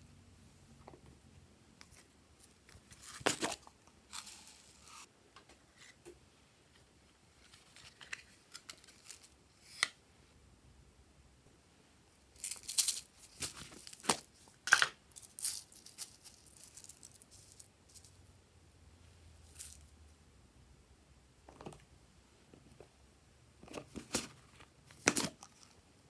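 Slime toppings being added by hand from small plastic containers into glass trays: scattered rustles, clicks and pouring noises as foam beads, glitter and slime go in. There is a loud flurry about halfway through and another near the end.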